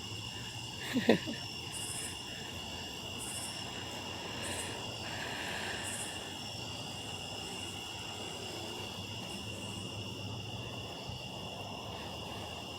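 Night insects, crickets among them, chirring steadily in several high, even tones. A short, louder pitched sound cuts in briefly about a second in.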